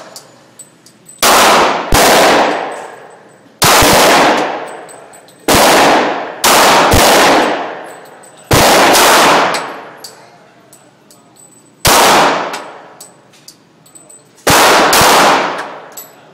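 Gunshots at a shooting range: about eight loud shots fired singly, some in pairs about a second apart, each followed by roughly a second of echo. Faint clicks can be heard between the shots.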